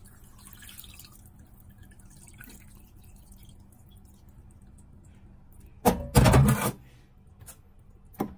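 Cloudy rice-washing water poured gently from a rice cooker's inner pot over salmon pieces in a bowl, a faint trickle and splash. About six seconds in there is a loud clatter lasting under a second, and a short knock near the end.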